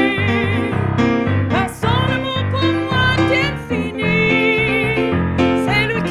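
Worship music played on an electric keyboard: sustained chords under a moving melody line.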